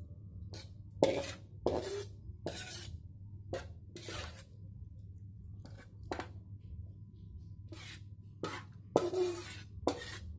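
Metal ladle knocking and scraping against an aluminium wok and a glass bowl while vegetable soup is ladled out: about a dozen irregular clinks, the loudest about a second in and about nine seconds in, over a steady low hum.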